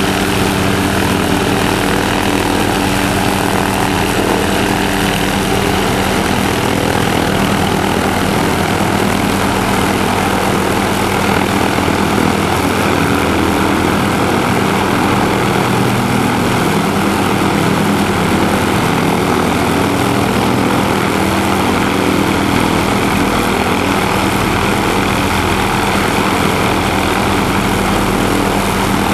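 MD 500 helicopter hovering close by: steady rotor and turboshaft engine sound holding at one level, with no change in pitch or power.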